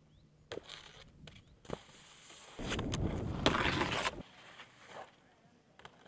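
Skis scraping and sliding over hard-packed snow: a loud rushing scrape lasting about a second and a half near the middle, with a few sharp clicks before it.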